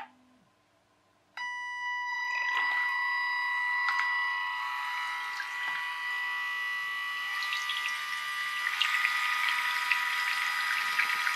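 Electric motor of a small RC jet boat driving its water-jet pump in a bath: a steady high whine starts about a second and a half in, with churning, splashing water growing louder near the end.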